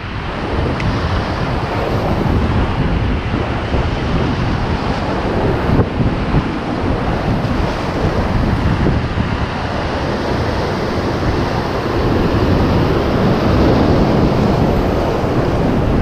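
Ocean surf breaking and washing white over shoreline rocks in a steady rush, with wind buffeting the microphone; the wash grows a little louder over the last few seconds.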